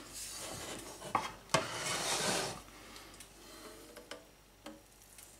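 An enamel pot and a frying pan being handled on a kitchen worktop as the pot is lifted and tipped: rubbing and scraping, a sharp clink about a second and a half in, then a few faint knocks.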